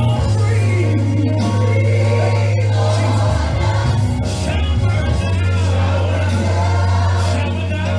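Recorded gospel song playing: choir and solo voices singing over a steady, deep bass.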